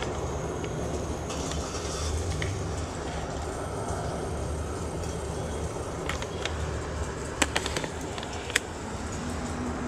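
A large engine idling with a steady low rumble, with a few sharp clicks in the second half.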